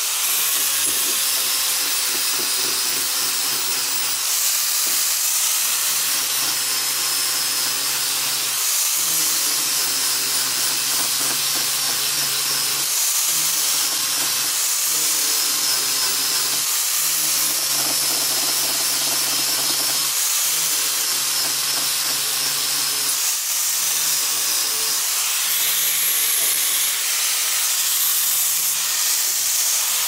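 Angle grinder running under load, its abrasive disc grinding wooden handle scales and the steel tang of a sword: a steady loud grinding hiss, with the motor's pitch dipping and recovering every couple of seconds as it is pressed in.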